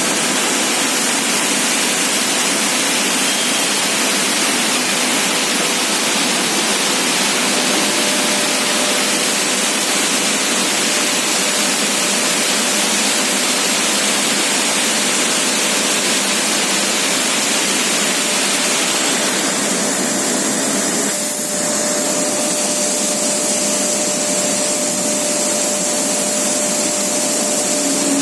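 CNC grinding machine running: a steady, loud hiss with faint steady whining tones underneath. The sound shifts slightly about twenty seconds in, with a brief dip just after.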